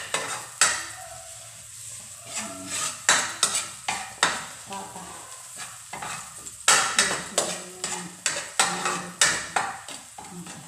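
Metal spatula scraping and knocking against a cooking pan in irregular strokes, stirring food that is frying.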